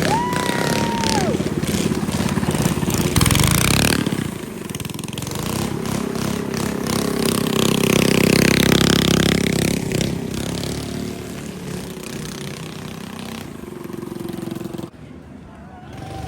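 Parade vehicles passing by with their engines running, one passing close and loud around the middle. A high held tone sounds near the start, and the sound drops off suddenly near the end.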